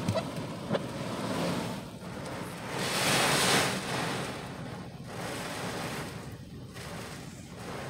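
Hurricane wind and driving rain beating on a car, heard from inside the cabin: a steady rush that swells into a strong gust about three seconds in. Two sharp knocks sound near the start.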